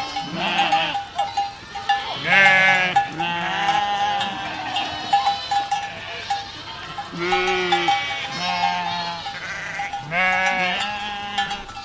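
A herd of goats bleating, many overlapping calls coming every second or so, some bending up and down in pitch, over a steady ringing tone that keeps breaking off and coming back.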